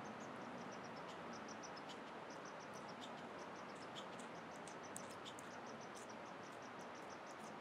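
Faint knife work on deer hide: a knife cutting and prying the cape loose around the base of an antler, heard as small, soft, high ticks in irregular runs over a steady faint hiss.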